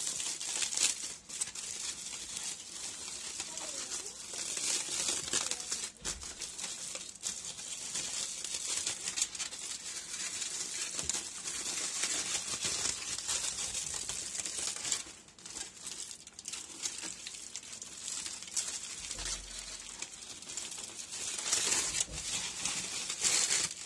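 Aluminium foil and plastic bubble wrap crinkling and rustling as hands unwrap a package, with many small crackles.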